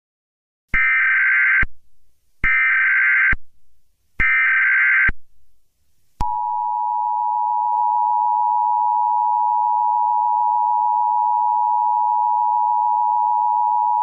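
Emergency Alert System header: three short, buzzing, warbling data bursts (the SAME header) about 1.7 s apart, followed about six seconds in by the steady two-tone EAS attention signal, held at one pitch. Together they mark the start of an emergency alert broadcast.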